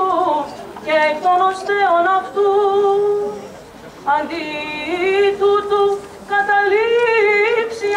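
A single voice chanting Orthodox liturgical chant unaccompanied, in long, wavering held notes with slow glides, dipping briefly a little before halfway.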